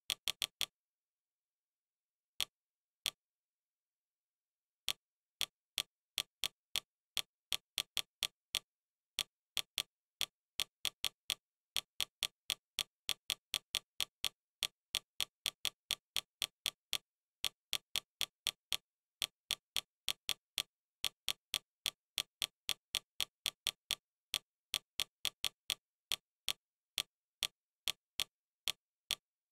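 Fire TV interface navigation clicks, one short click each time the highlight steps down a menu list. A few come scattered near the start, then after a short pause a quick run of about three a second, with dead silence between them.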